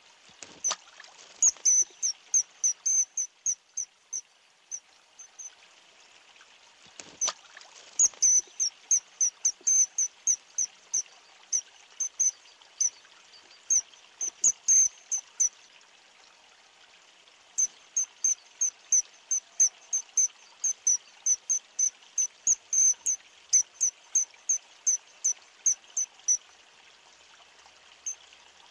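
Common kingfisher calling: a series of short, shrill, high-pitched notes, about three a second, in three long runs separated by brief pauses.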